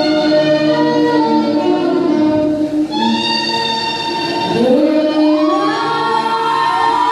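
Saxophone playing long held notes in a live stage performance. Audience shouts and whoops rise over it in the last couple of seconds.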